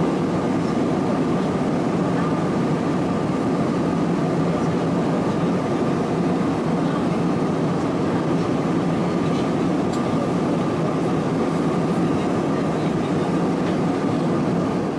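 Steady cabin noise of an Airbus A320-216 in cruise, heard inside the cabin: the hum of its CFM56 engines and the rush of air over the fuselage, with a faint steady whine running through it.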